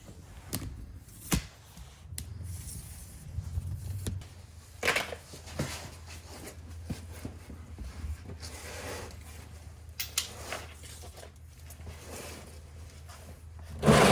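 Scattered clinks, knocks and scrapes of hand tools and metal parts during work on a truck's rear differential, over a low steady hum, with a louder rattle right at the end.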